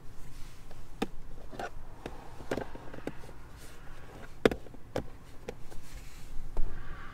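Hard plastic clicks and knocks as the cupholder insert in a Renault Megane E-Tech's centre console is handled and moved. There are about eight sharp clicks spread over the few seconds, the loudest about halfway through.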